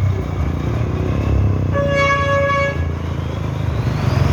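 International truck engine running with a steady low rumble, its horn sounding one blast of about a second a little under two seconds in. A faint rising whine climbs near the end.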